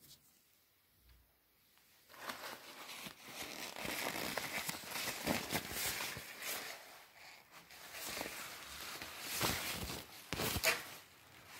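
Thin plastic coat crinkling and rustling as it is handled and lifted, starting about two seconds in and going on in uneven bursts of crackle, with a few louder crinkles near the end.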